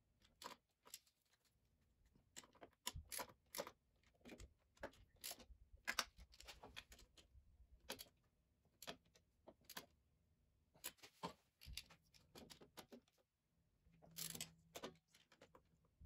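Faint, irregular metallic clicks and clinks of a ratchet and socket wrench tightening the cylinder head nuts, in scattered clusters.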